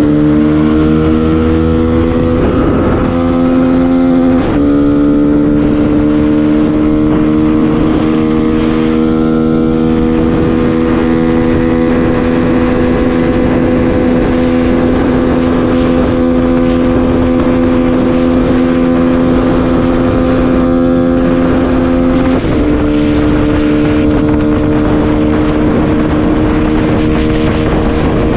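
Honda CG 160 single-cylinder engine running hard at highway speed under a steady rush of wind and road noise. Its pitch drops a step about four seconds in and again near 22 seconds, and otherwise holds steady or creeps slowly upward as the bike gains speed.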